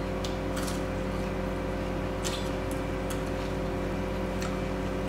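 Close-miked eating of rice and mutton curry: a few short, wet mouth smacks and chewing clicks, over a steady electrical hum.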